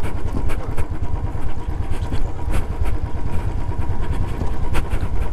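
Royal Enfield motorcycle riding over a rough dirt track: a steady low engine and road rumble with scattered knocks and rattles from the bumps.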